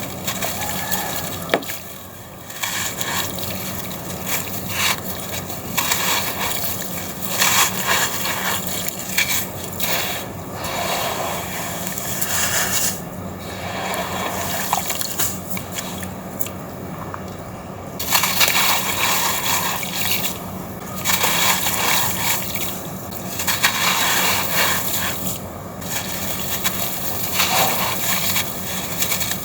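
Gritty red sand-cement chunks crumbling and crunching in water, a steady wet grainy sound that swells and dips in many small surges.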